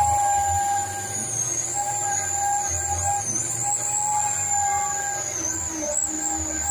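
Dump truck's diesel engine running with a low, uneven rumble. Music plays over it, and a high whine wavers above.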